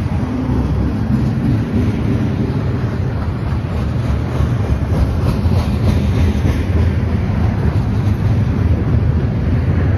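CN freight train's cars rolling past, a steady rumble of steel wheels on rail with some clacking, growing a little louder toward the end.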